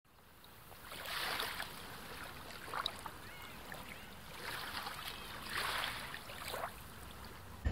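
Small waves washing onto a sandy beach, faded in from silence, with a few soft swells of surf hiss as they break and run up the sand.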